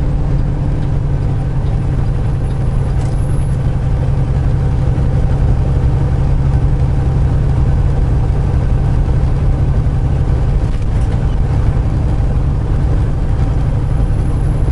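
Semi truck's diesel engine running steadily, heard from inside the cab as a continuous low drone.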